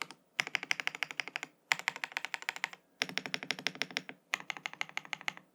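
Fast typing on a Vortex GT65 mechanical keyboard with stock Gateron Smoothie linear switches, PBT cherry-profile keycaps and a polycarbonate plate. The keystrokes come in four quick bursts of about a second each, with short pauses between.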